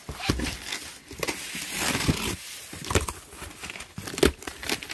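Cardboard shipping box handled on a table and its packing tape slit with a box cutter: rustling and scraping of cardboard, tape tearing, and a few knocks, the loudest about four seconds in.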